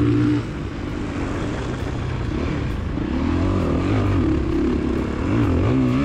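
Motocross dirt bike engine heard from the bike, its pitch rising and falling as the throttle is worked: it drops off about half a second in and climbs again from about two and a half seconds.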